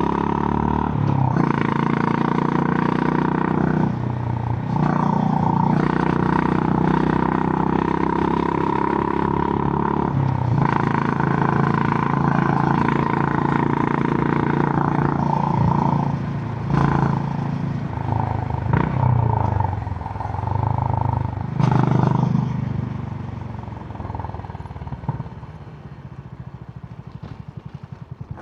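Honda GB350's single-cylinder engine through its stock exhaust, running steadily under way. From about 16 s the sound rises and falls a few times with the throttle, then drops off and settles into a slow, even thump near the end.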